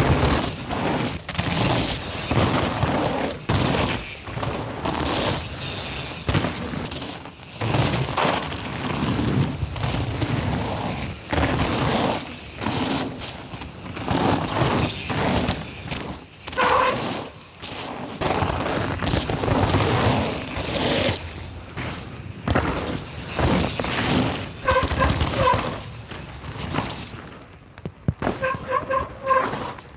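Specialized enduro mountain bike ridden hard down a wet, muddy trail: tyres tearing through dirt, roots and puddles, with a rapid, uneven clatter of knocks and rattles from the bike over bumps.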